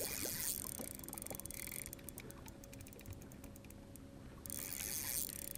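Fishing reel clicking in rapid runs of fine ticks while a fish is being fought. A rushing noise comes at the start and again near the end.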